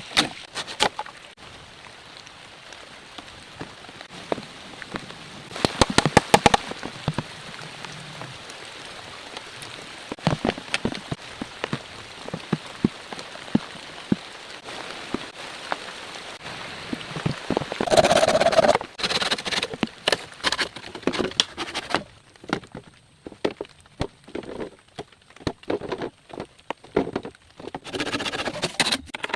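Rain falling, a steady hiss dotted with sharp drips and taps, with louder clusters of knocks twice. About two thirds of the way through the steady hiss drops away, leaving scattered taps and knocks.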